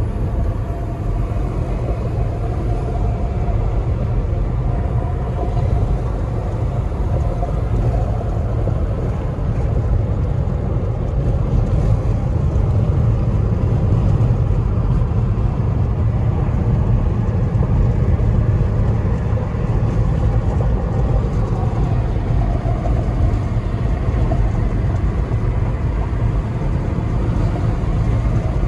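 Steady road and engine noise inside a moving car's cabin, mostly a low rumble of tyres and engine.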